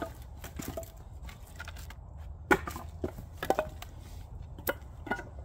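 Split pieces of red oak firewood clunking as they are tossed onto a pile, about seven sharp wooden knocks, the loudest about halfway through.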